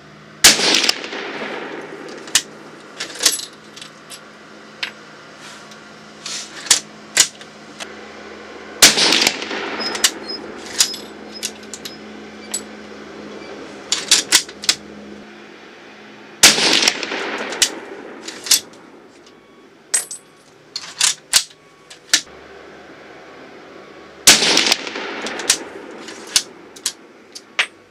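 Four shots from a Gewehr 98 bolt-action rifle in 8mm Mauser, about eight seconds apart, each echoing for a second or two. Between the shots come smaller sharp clicks and clacks, the sound of the bolt being worked.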